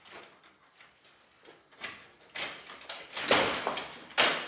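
An apartment door being opened and handled, with bumps and rustling. The first part is faint clicks, and the noise grows loudest about three seconds in.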